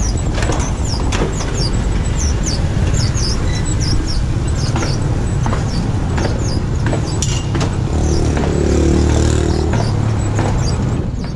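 Road traffic going past with a steady low rumble, and a vehicle engine swelling as it passes about eight seconds in. Short high chirps repeat through it.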